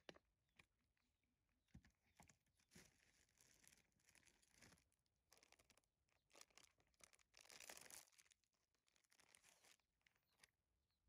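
Faint sounds of a baby macaque eating a piece of cake: chewing, soft crumbly tearing and rustling, and scattered small clicks, with the loudest rustle about two thirds through.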